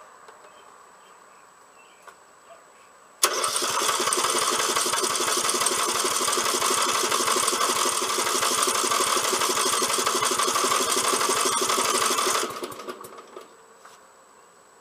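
Briggs & Stratton Intek 13.5 hp single-cylinder engine on a Snapper Comet rear-engine rider catching with a sudden start about three seconds in, just after its fuel valve was opened. It runs steadily for about nine seconds, then dies away.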